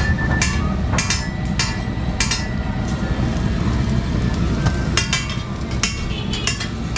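Metal spatula clinking and scraping on a large flat metal griddle as egg-coated shami patties are flipped, giving sharp ringing taps: a few in the first couple of seconds and a quick cluster about five to six and a half seconds in. A steady low rumble runs underneath.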